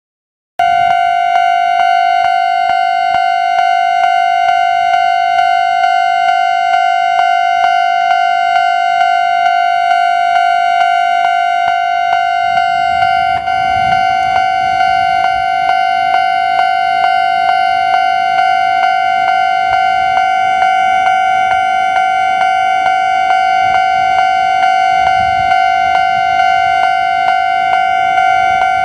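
Japanese railway level-crossing warning bell ringing, a steady electronic alarm tone struck in a regular beat, starting suddenly about half a second in.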